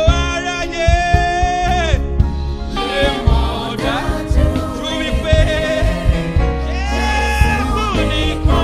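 Gospel singing with a band: a lead voice holds and bends long notes over bass and drums, with voices joining in.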